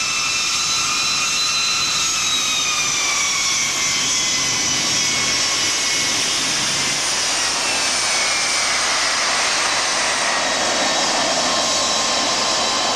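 Air France Boeing 747-300's jet engines whining at low power as the airliner taxis and turns on the runway. It is a steady roar with several whining tones that slowly fall in pitch.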